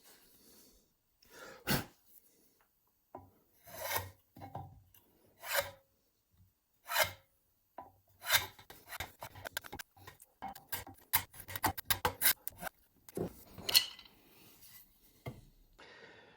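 Hand plane shaving the corners off an oak table leg to bevel its base into an eight-sided shape. Single strokes come spaced out at first, then a quicker run of short strokes from about halfway through.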